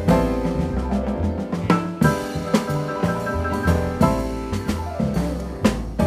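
Jazz piano trio playing live: piano chords over double bass, with sharp drum-kit accents.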